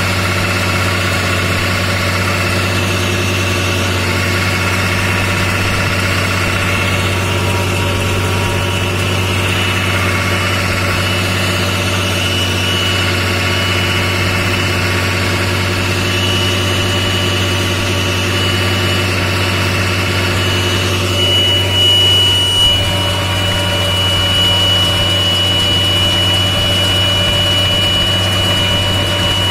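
Tractor diesel engine running steadily at a constant speed, heard from the driver's seat while pulling a round baler. A thin high whine runs over the engine and grows louder about 21 seconds in.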